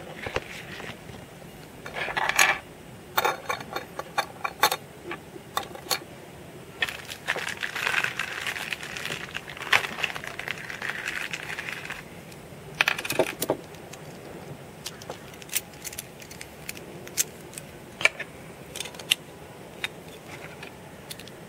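Metal parts of a Beyblade Metal Fight 4D spinning top clicking and clinking, against each other and on a wooden tabletop, as the top is handled and fitted together. These are sharp, scattered clicks with a few busier clattering stretches.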